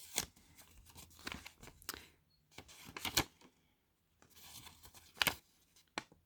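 Packaging being handled and opened by hand: irregular crinkles and short tearing sounds from paper and plastic wrapping.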